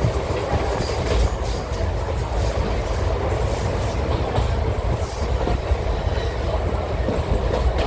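Passenger train running along the line, heard at an open coach window: a steady low rumble of wheels on rail under a rushing noise, with occasional clicks and knocks from the track.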